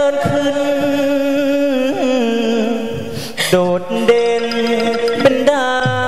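Likay stage music: a melody of long, wavering held notes over the backing band, with a sharp percussive hit about three and a half seconds in.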